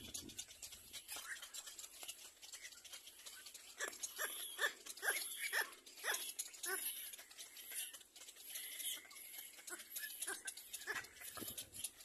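Little black cormorant chicks calling at the nest in short, repeated squawks, most of them between about four and seven seconds in, over a steady high hiss.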